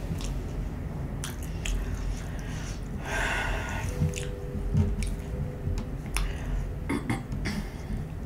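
Close-miked chewing of fast food: soft wet mouth clicks and smacks, with a short burst of noise about three seconds in.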